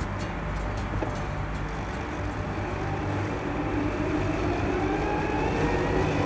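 A motor running over a steady low rumble, its pitch rising slowly through the second half.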